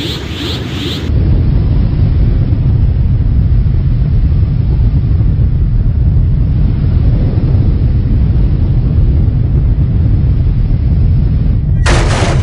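A loud, steady deep rumble sound effect cuts in about a second in, replacing a rapidly pulsing high-pitched sound, and runs on unchanged; near the end a sudden harsh burst of noise breaks in.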